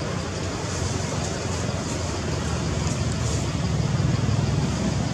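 Steady outdoor background noise with a low rumble, growing a little louder near the end; no monkey calls stand out.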